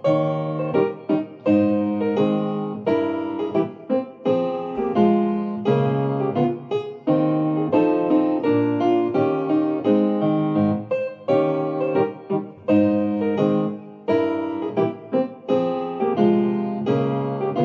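Piano accompaniment playing an interlude of chords in a steady rhythm, with the trumpet silent.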